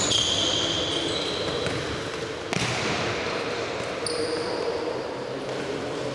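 Ball game in an echoing indoor sports hall: shoes squeak on the court several times, with one sharp ball impact about two and a half seconds in, over a steady murmur of the hall.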